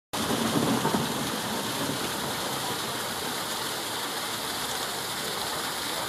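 Small garden waterfall cascading over rocks, a steady rush of falling water.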